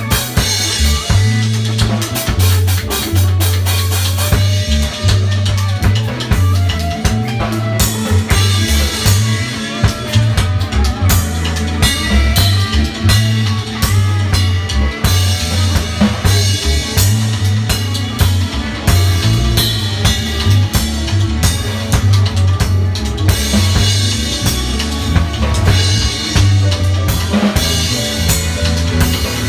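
Dub music jam: drums keeping a steady groove over a low, stepping bass line.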